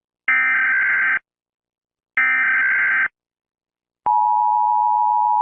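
Emergency Alert System signalling: two buzzy SAME header data bursts of about a second each, a second apart, then the steady two-tone EAS attention signal starts about four seconds in.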